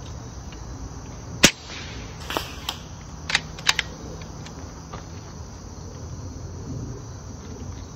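Handling of a .25 AEA Challenger bullpup air rifle while a double-fed pellet is cleared: a single sharp crack about a second and a half in, a short hiss, then a quick run of metallic clicks from the action.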